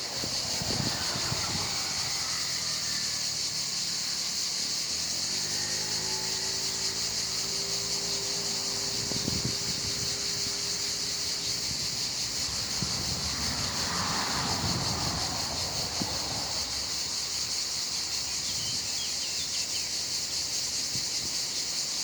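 Steady high-pitched chorus of cicadas.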